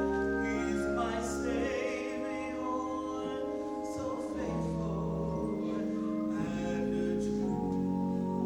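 Organ playing slow, held chords, with singing voices over it.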